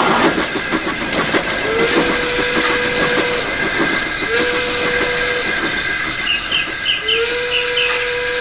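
Steam locomotive sound effects: a steam whistle blowing three times, each blast sliding up at its start, over a steady hiss of steam. A fast clicking of wheels is heard in the first few seconds.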